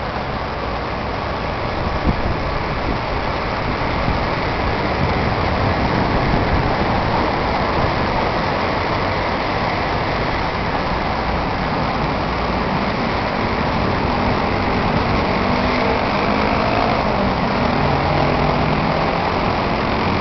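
Steady city road traffic: cars and engines blend into one continuous wash of noise. A low engine hum comes in over the second half.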